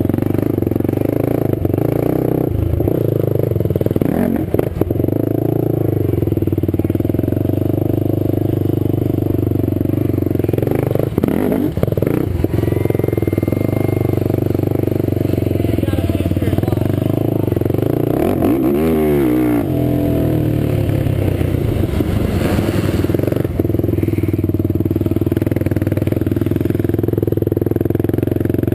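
Quad (ATV) engine running steadily under way on a dirt track, with a brief wavering rise and fall in pitch about two-thirds of the way through.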